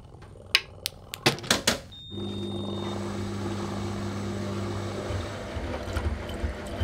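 A few sharp clicks and knocks, a short high beep, then a washing machine starting up: a steady motor hum, with low thuds from the tumbling drum in the last couple of seconds.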